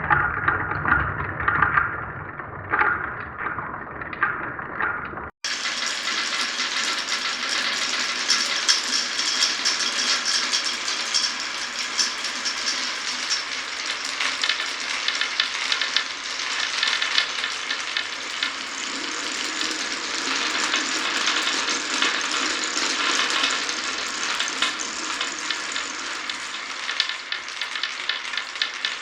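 Many marbles rolling and clattering along marble run tracks at once, a dense continuous rattle of fine clicks. About five seconds in, an abrupt cut ends a duller stretch of separate knocks and rolling, and this rattle takes over.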